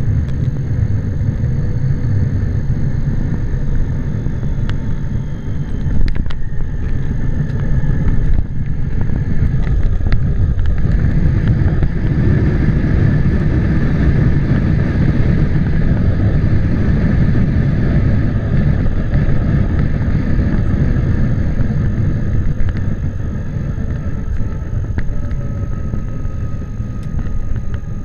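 Jet airliner landing, heard from inside the cabin: a steady deep rumble of the engines and the wheels on the runway, with a couple of knocks about 6 and 8 seconds in. From about 10 seconds in the rumble grows louder, with a faint steady whine above it, as the jet slows with its spoilers raised, then it eases off near the end.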